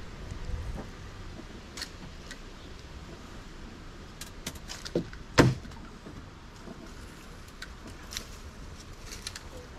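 Scattered light clicks and knocks of gear being handled, with one louder thump about five and a half seconds in.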